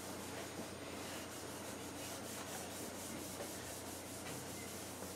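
Scotch-Brite pad rubbed back and forth over an end-grain wooden butcher block: a quiet, steady scrubbing as a hard wax oil finish is worked into the wood.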